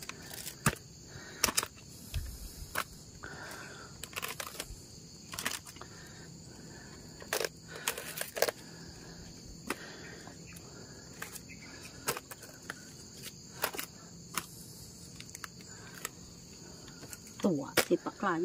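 Durian fruits being packed into a woven basket: irregular knocks and scrapes of the spiky husks against the weave. A steady high insect drone runs underneath.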